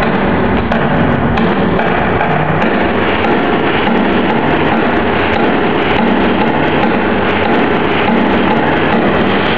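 Flamenco music played loud and steady, a dense wash with percussion.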